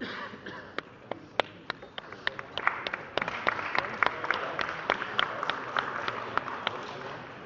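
Small crowd of spectators clapping to greet the winner of a jiu-jitsu bout: a few scattered claps at first, then dense applause from about two and a half seconds in, with voices underneath.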